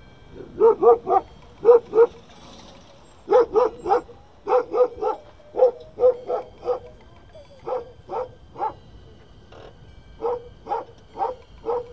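Dog barking repeatedly in quick runs of two to four barks: alert barking at a car pulling up to its home.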